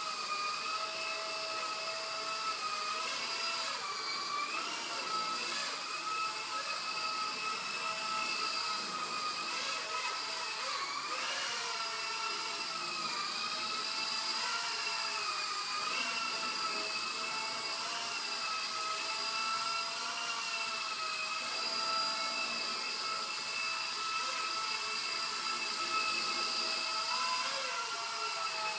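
Electric motor and rotors of a Blade 120 SR fixed-pitch sub-micro RC helicopter whining steadily in flight. The pitch wavers up and down as the throttle changes, with brief dips a few seconds in and again about eleven seconds in.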